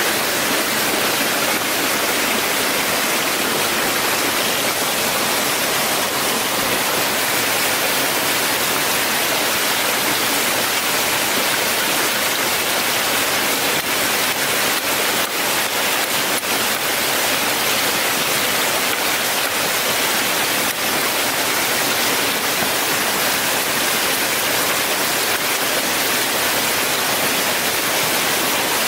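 Steady rushing of running water, a stream or waterfall, with a few faint clicks about halfway through.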